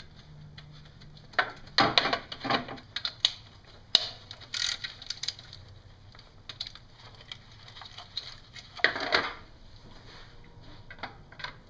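Ratcheting wrench and metal hand tools working the alternator's mounting bolts on an engine: irregular clicks, clinks and short ratcheting rasps, the longest rasp about nine seconds in.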